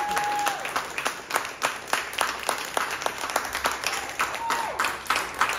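Small audience applauding, with individual hand claps distinct in a quick irregular patter. A held note ends about half a second in, and a voice calls out briefly near the end.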